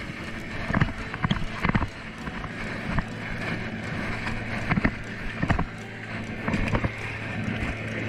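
Tractor engine running steadily, with irregular splashes and squelches of footsteps wading through a flooded, muddy paddy field.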